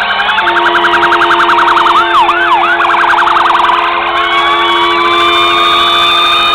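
Several fire truck sirens sounding at once. One runs a fast yelp, drops into a couple of slow swoops about two seconds in, then yelps again before settling into a slow rising wail. Another siren warbles higher up, and a steady low tone holds underneath.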